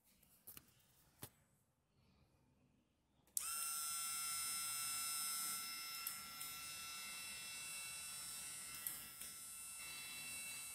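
Small geared vending-machine dispenser motor switching on with a click about a third of the way in and running with a steady high-pitched whine as it turns the dispensing shaft. Two faint clicks come before it starts.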